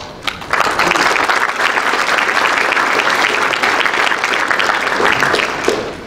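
Small seated audience applauding: dense clapping starts about half a second in, holds steady, and fades out near the end.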